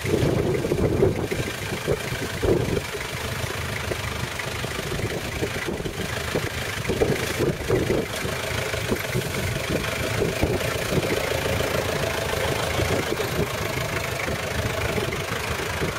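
Toyota Land Cruiser pickup's engine running low and steady as the truck crawls slowly along a steep side-slope, with bursts of rustling and scraping from hedge branches brushing its body in the first few seconds and again about halfway through.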